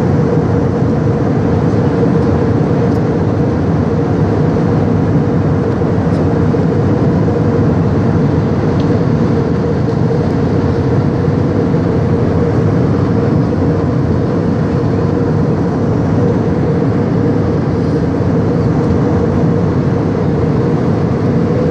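Airliner cabin noise in cruise, heard from a window seat beside a jet engine: a steady rush of engine and airflow noise with a steady hum underneath, unchanging throughout.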